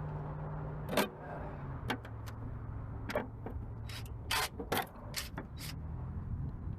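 Scattered sharp clicks and clanks of hand tools and loose metal car parts being handled while a car interior is taken apart, about nine in all, over a steady low hum.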